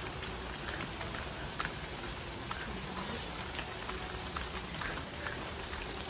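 Rain and water dripping from forest trees: scattered, irregular drop ticks over a steady hiss.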